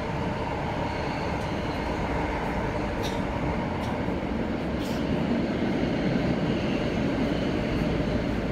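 Tokyo Metro subway train heard from inside the car: steady running rumble of wheels and motors, a little louder in the second half, with a couple of faint brief clicks.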